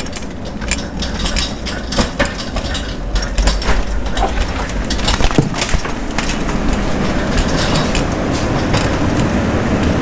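Loaded pallet of plastic produce tubs rolled on a pallet jack across a concrete floor: a steady rumble with irregular clacks and knocks, which thin out after about six seconds into a smoother rolling rumble.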